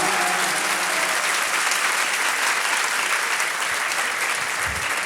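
A crowd applauding a recited verse, the clapping thinning out gradually.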